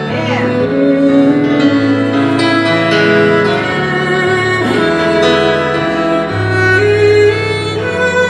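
Instrumental introduction of a worship song: held chords with a few plucked notes and no voice yet.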